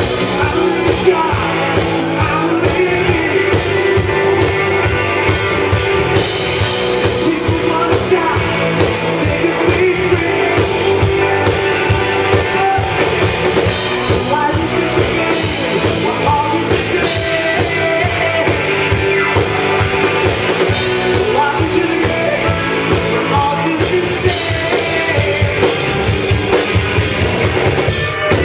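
Live rock band playing loud and full: drum kit, electric guitars and bass, and an upright piano, with a singer.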